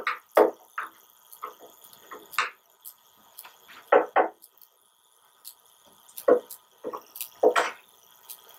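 Plastic slot covers being prised out of a TIG welder's water cooler housing with a flathead screwdriver: a string of irregular sharp clicks and knocks of plastic and metal, about ten in all.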